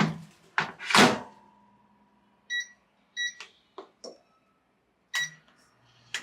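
Microwave oven being operated: two loud clunks in the first second, then three short high keypad beeps with button clicks between them, and a sharp click near the end as the oven is set going.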